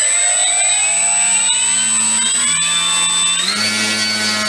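FMS Kingfisher RC plane's brushless electric motor spinning its propeller on the bench under throttle: a whine that climbs steadily in pitch as the throttle is advanced. About three and a half seconds in it steps up and holds at a higher speed, with a thin steady high tone above it.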